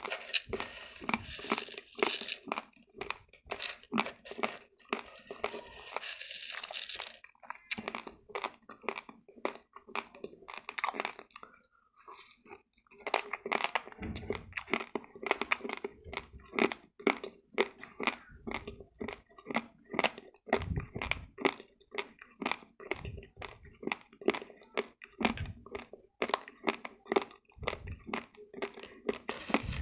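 Raw long-grain basmati rice being chewed: a dense run of short, dry crunches, with a brief break about halfway through.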